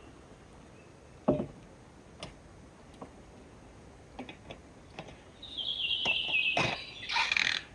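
A few scattered knocks of objects being handled and set down on a wooden picnic table, the loudest about a second in. Near the end comes a high, thin wavering squeak lasting about a second and a half, followed by a brief rustle.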